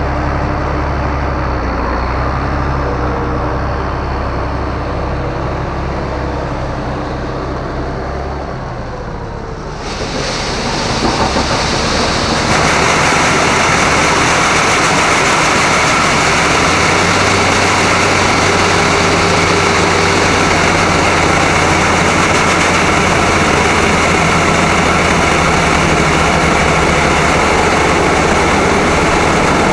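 Heavy farm machinery engine running steadily. About ten seconds in, a louder, even rushing machine noise builds up over a couple of seconds and then runs on steadily.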